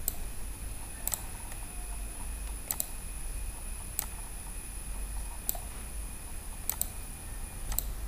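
Computer mouse clicking, about seven clicks roughly a second apart, several of them quick double clicks, over a faint steady electrical hum and a thin high whine.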